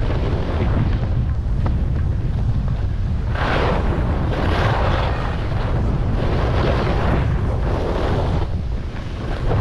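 Wind buffeting the microphone while skiing downhill, with ski edges scraping across packed snow in a run of turns, each a swell of hiss, from about three seconds in.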